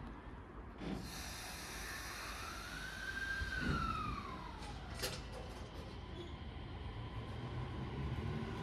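E231-series 1000-subseries electric train starting off from a station. Its inverter whine rises, then glides down, as it begins to accelerate, with a short sharp noise about five seconds in and low running rumble after.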